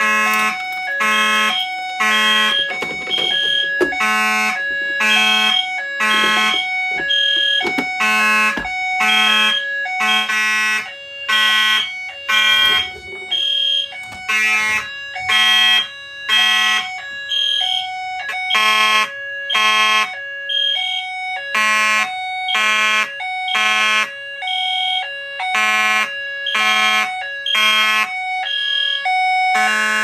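Fire alarm horns, a Simplex mechanical horn and an EST Genesis horn, sounding together in evenly repeating pulses: the system is in alarm from a pull station. Between about 2 and 9 seconds in, a key rattles and clicks in the ADT pull station.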